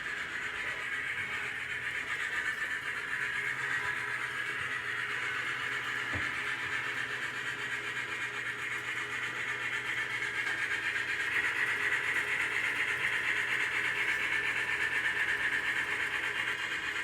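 Athearn Challenger (Union Pacific 3985) model steam locomotive with DCC sound running steadily on a layout, a continuous running sound from its sound decoder and wheels on the track that grows louder about eleven seconds in. A single click about six seconds in.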